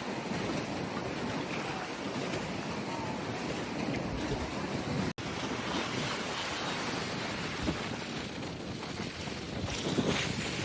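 Strong wind buffeting the microphone over choppy waves breaking and washing on the shore of the Chesapeake Bay. The sound cuts out for an instant about halfway through.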